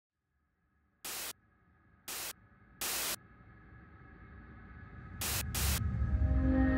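Five short bursts of white-noise static that start and stop abruptly, the last two close together. Underneath, a low rumble with faint steady tones swells steadily toward the end.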